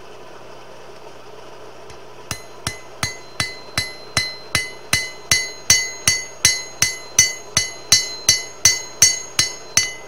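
A hand hammer strikes hot spring steel on an anvil in a steady rhythm, about 21 blows at nearly three a second, each one ringing and growing louder, as the bar of hay rake tine is drawn out into a knife blade. The blows start about two seconds in.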